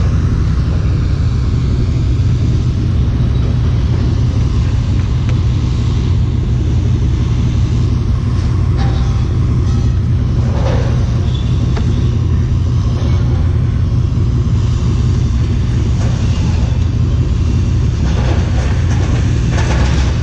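Pickup truck driving on the road, a steady low rumble of engine and tyre noise heard from inside the cab, with a few light rattles.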